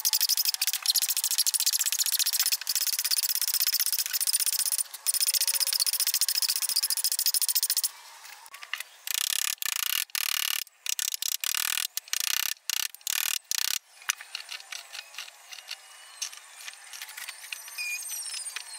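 Flat steel hand file rasping over wood in long back-and-forth strokes; about eight seconds in it gives way to a chisel paring the wood in short, separate cuts, growing quieter and finer near the end.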